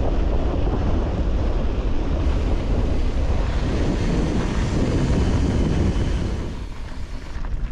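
Wind buffeting the microphone: a steady low rumble with hiss, easing slightly near the end.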